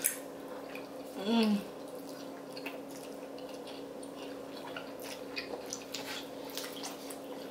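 Samyang carbonara fire noodles being slurped and chewed, with many small wet mouth clicks, and a short hum about a second in.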